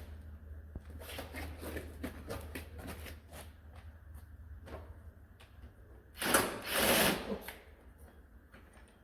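Irregular light metallic clicks and ticks of hand tools working on a Bobcat's hydraulic ram. About six seconds in comes a louder rushing noise lasting just over a second.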